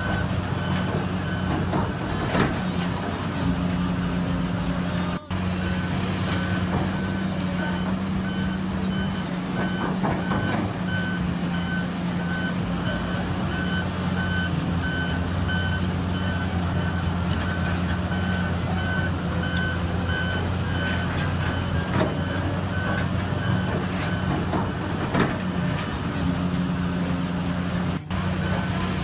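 Heavy construction machinery's reversing alarm beeping steadily over the running of heavy diesel engines. The alarm stops about a second in and starts again about six seconds in. A few short clanks sound now and then.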